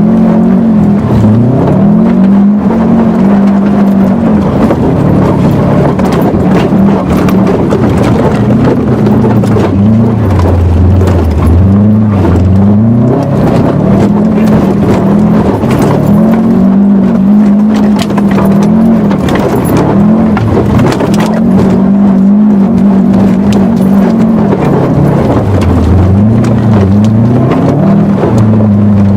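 Car engine revving hard and easing off again and again as the car is slid sideways through mud, its pitch climbing and dropping every second or two. Scattered clicks and rattles run along with it.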